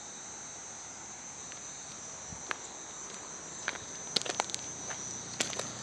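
Insects chirring in a steady high-pitched drone, with scattered clicks and footsteps starting about halfway through. A low engine hum creeps in near the end.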